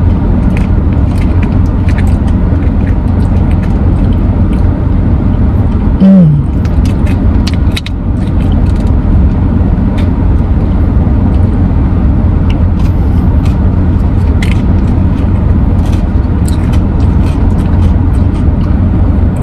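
Steady low rumble of a car interior with the engine running, with scattered small clicks throughout and a short hummed vocal sound about six seconds in.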